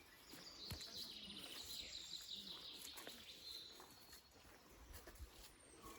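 Faint birdsong: a high, slightly falling trill in the first half, over quiet woodland ambience.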